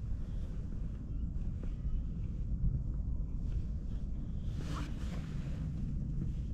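Wind buffeting the microphone, a steady low rumble, with one short higher-pitched sound a little over halfway through.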